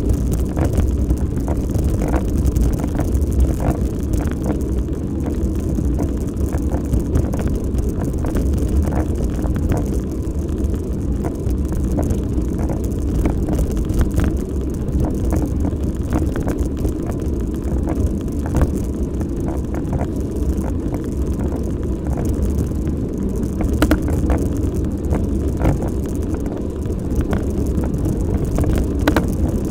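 Steady rush of wind on the microphone and tyre noise from a bicycle rolling along a rough lane, with frequent small clicks and rattles as the bike jolts over the surface.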